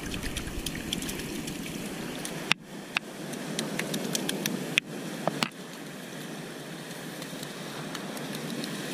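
Sea surf washing over rocks in a steady rush, with a few sharp knocks and clicks from movement close to the camera.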